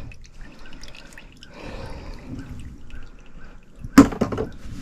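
Water dripping from a cut-open, sediment-clogged condensate drain line, with small scattered ticks and one sharp knock about four seconds in.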